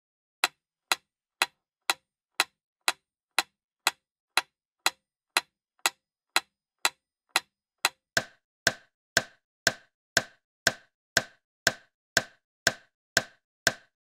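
Pendulum metronome ticking at a steady beat, about two ticks a second. About eight seconds in, the tick changes to a fuller, slightly longer-ringing click.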